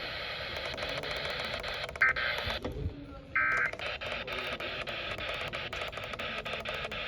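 Radio static hiss crackling with clicks, broken by two short bursts of Emergency Alert System header data tones, about two seconds in and again about three and a half seconds in.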